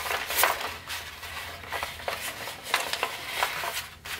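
A sheet of Tant origami paper rustling in a series of short, scratchy strokes as hands fold it and press creases into it.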